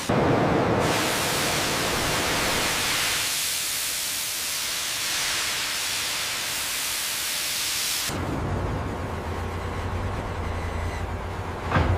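A loud steady hiss of venting steam lasts about eight seconds and then cuts off suddenly. A steady low machinery hum follows, with one sharp metallic clank near the end.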